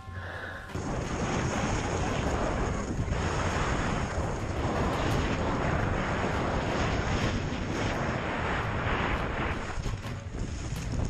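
Wind rushing over the microphone of a camera carried fast down a ski slope, with the hiss of snow sliding under the rider. It starts about a second in and holds steady.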